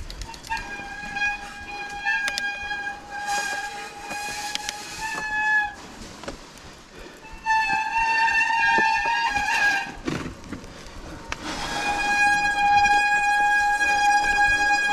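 Mountain bike brakes squealing on a descent: a steady high-pitched squeal held for several seconds at a time, three times, over tyres rolling on a dirt trail with occasional knocks from bumps.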